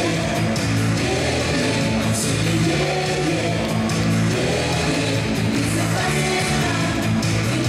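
Loud rock music with a singing voice, playing steadily as accompaniment to a circus act.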